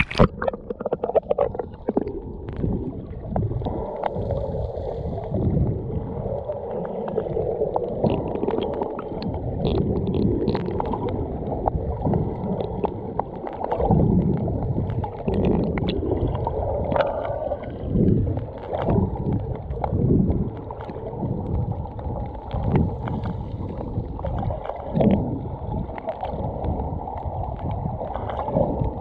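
Muffled water heard through an underwater camera just below the sea surface: a splash with crackling bubbles as it dips under, then low, dull sloshing and gurgling that swells and fades every second or two.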